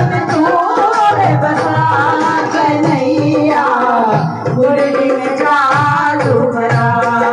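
A woman singing a devotional Hindi bhajan to Krishna through a microphone, with hands clapping along and a drum thudding a steady beat under the voice.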